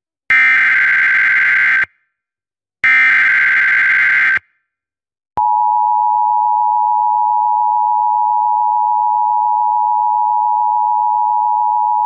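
Emergency Alert System SAME header: two short, loud buzzy bursts of digital data tones, each about a second and a half long with a short pause between. After a second of silence, the steady two-tone EAS attention signal starts about five seconds in and holds. Together they open an EAS alert, here a National Weather Service coastal flood warning.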